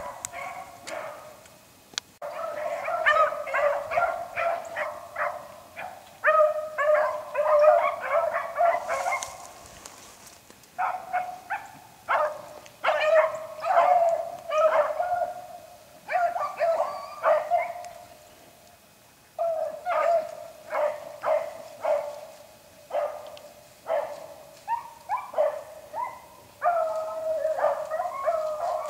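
Beagles baying while running a rabbit: strings of quick, overlapping barks in bursts, fading twice to a lull before picking up again.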